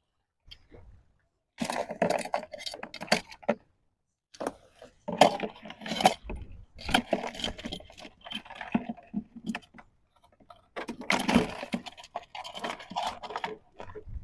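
Large crabs and a crab trap being handled: irregular bursts of clinking, rattling and scraping, with short pauses between them, as a crab clamped onto the trap is worked free and added to the catch.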